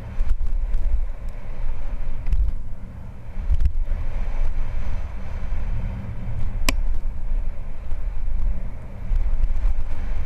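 Downhill mountain bike running fast down a dry dirt trail, heard from a helmet-mounted camera: a steady low rumble of wind on the microphone and tyres on dirt, with small rattles and clicks from the bike. There is one sharp click about two-thirds of the way through.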